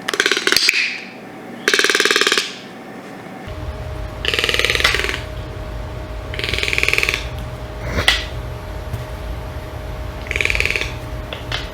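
Toucan giving short croaking calls, each a fast rattle of pulses, about five times with pauses between. A sharp click sounds about two-thirds of the way through.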